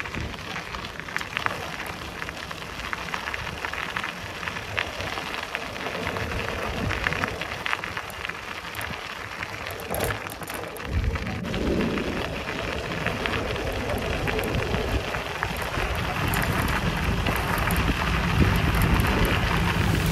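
Bicycle tyres rolling over a rough forest path, a steady crackling hiss full of small ticks; about halfway a low rumble of wind on the microphone joins in and the whole sound grows louder.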